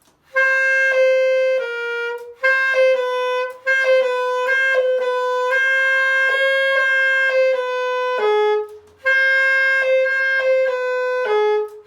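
Solo saxophone playing ghost notes: sustained notes in three short phrases, the tone briefly dipping by about a quarter tone and returning, passing between A and G-sharp. Each dip comes from lowering certain keys part-way.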